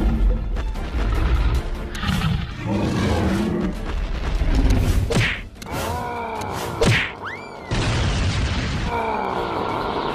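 Cartoon fight sound effects over background music: booms, whacks and whooshing pitch sweeps, with several sharp hits.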